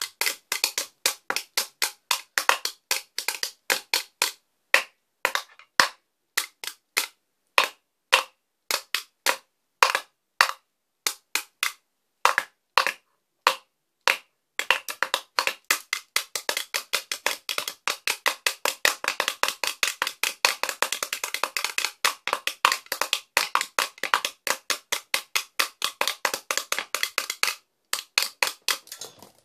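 Drumsticks beating on the top of a wooden stool played as a drum: sharp wooden clicks in an uneven rhythm, breaking about halfway through into a fast, continuous roll that runs for over ten seconds before a brief pause near the end.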